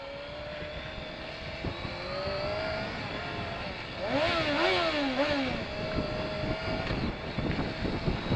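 Motorcycle engine under way, its pitch climbing slowly as it accelerates. About four seconds in it gets louder, and the revs rise and drop several times in quick succession before settling to a steady note. Wind rumble runs underneath.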